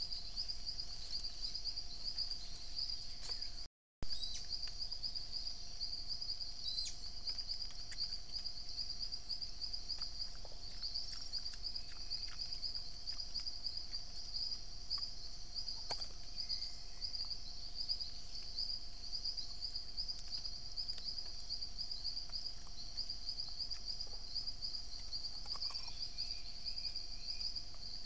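Steady high-pitched insect chorus, a fast pulsing trill, with a faint steady hum beneath and a few scattered soft clicks. The sound cuts out for a moment about four seconds in.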